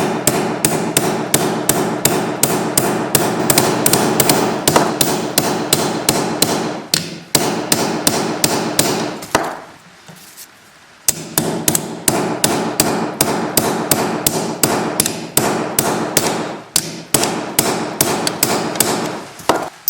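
Hammer striking a flat-ended riveting punch in quick, steady blows, about three to four a second, flattening the rivets of a new sprocket nose on a chainsaw guide bar, with the metal ringing between blows. The hammering stops for about a second and a half near the middle, then starts again.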